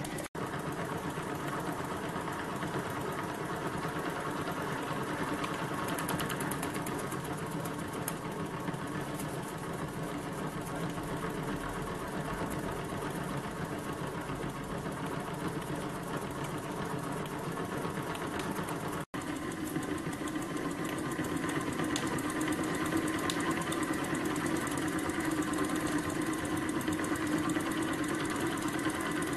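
Homemade oscillating ('wobbler') model steam engine running steadily on steam from its small boiler, fired by a single wick burner. It makes a fast, even run of ticking beats that grows slightly louder in the last third.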